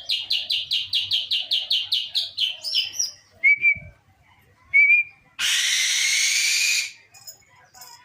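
A captive eagle calling: a fast run of high, falling chirps, about six a second, for the first few seconds. Two short lower calls follow, then a harsh, noisy rasp lasting about a second and a half.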